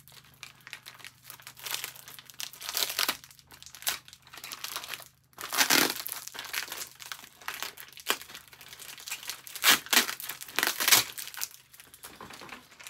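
Clear plastic bag crinkling and rustling as it is handled and worked open, in irregular bursts, the loudest about halfway through and near the end.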